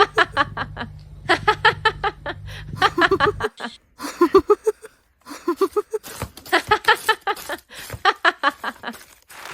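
A person laughing in several bouts of quick, short ha-ha bursts, over a low steady hum that stops about a third of the way through.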